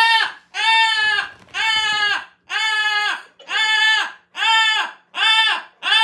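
Pet parrot calling over and over, a loud nasal call repeated about one and a half times a second, each call rising and then falling in pitch.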